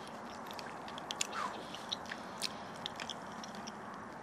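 A person chewing a bite of smoked brisket close to the microphone, with many small wet mouth clicks scattered through, over a steady background hiss.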